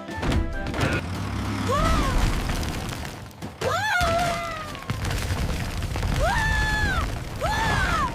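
A steady low rumble with four short voice-like cries over it, each rising and then falling in pitch.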